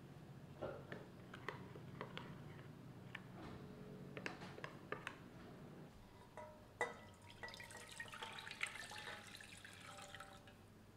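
A metal spoon stirs a thick sesame-paste and soy-sauce mixture in a small glass bowl, with light ticks against the glass. About a second after the stirring ends, liquid is poured into an empty stainless steel pot, splashing and ringing against the metal for about three seconds.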